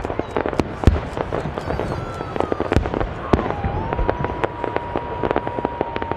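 Aerial fireworks going off in a rapid, irregular barrage of sharp bangs and crackles. A long, steady whistle tone rises up about halfway through and holds to the end.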